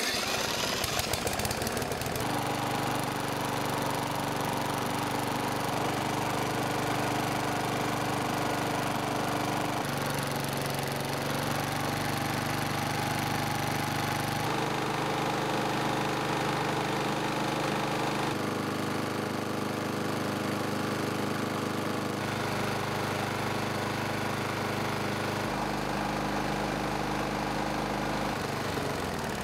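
Small single-cylinder lawn mower engine starting up, then running steadily at constant speed, with a few abrupt shifts in tone.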